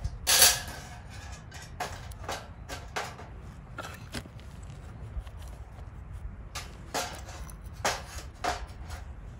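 Irregular knocks and clicks of objects being handled, about a dozen spread unevenly, with one louder, longer noise about half a second in.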